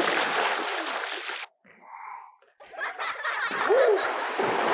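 Water splashing and churning around a giant inflatable bubble ball on a swimming pool, with short bursts of laughter. The splashing breaks off for about a second halfway through, then starts again.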